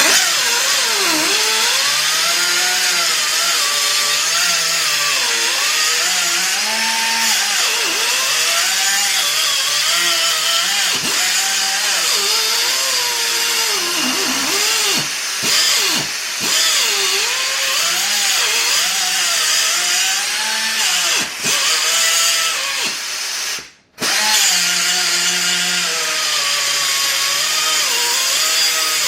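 SP Air SP-7231 flex-head pneumatic cut-off tool running at speed with its 3-inch wheel, cutting and grinding into welded steel. The loud high whine wavers up and down in pitch as the wheel bites. It cuts out briefly near the end and starts again.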